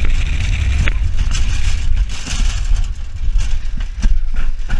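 Onboard sound of a steel roller coaster train running along its track: a heavy steady rumble from wind buffeting the microphone and the wheels on the rails, under a rushing hiss, with several sharp clacks in the second half.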